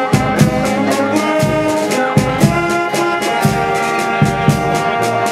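Street brass band playing: saxophones, trumpets and a sousaphone holding and moving through notes together, over snare and bass drum hits keeping the beat.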